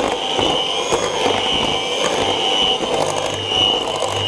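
Electric hand mixer running steadily, its twin beaters whirring through thick cake batter to break up the last flour lumps. A steady high motor whine, wavering slightly, sits over a low hum.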